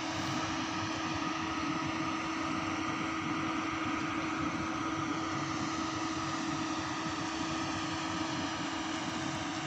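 An engine running steadily: a constant drone with a held low hum and no change in pitch.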